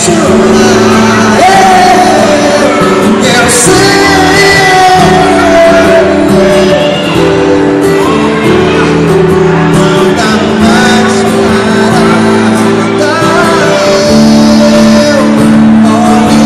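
Live band music: a male voice singing loudly over strummed acoustic guitar, electric bass and keyboard, in a large hall.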